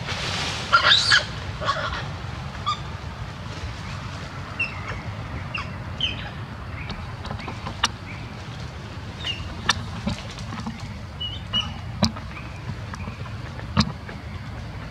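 Forest ambience: scattered short, high chirps and a few sharp clicks over a steady low rumble, after a loud noisy burst in the first second or so.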